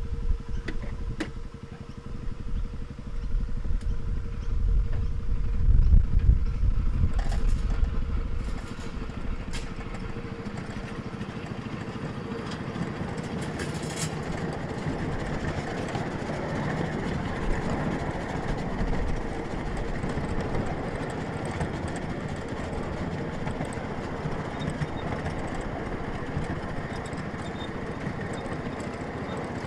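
Ride-on miniature railway train running along its track: a steady mechanical running noise. It has a heavy low rumble and is loudest in the first several seconds, with a few sharp clicks, then settles into an even run.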